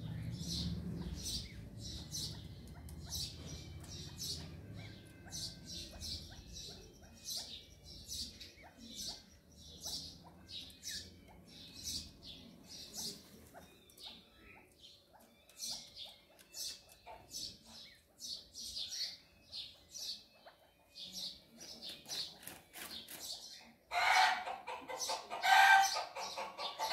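Chukar partridge chicks peeping: a run of short, high-pitched peeps, several a second. Near the end, louder and fuller calls break in.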